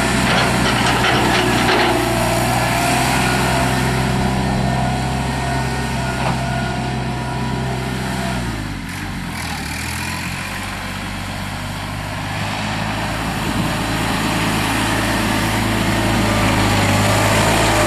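Mahindra 3616 compact tractor's diesel engine running steadily; about eight and a half seconds in the engine speed drops, then climbs back up over the following few seconds.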